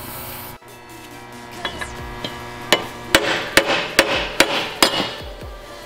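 A spray can of penetrating oil hisses briefly at the start on a rusted Scag V-Ride mower deck spindle pulley. Then a hammer strikes metal on the spindle about eight times, sharp ringing blows roughly two or three a second, to knock loose the seized spindle hardware.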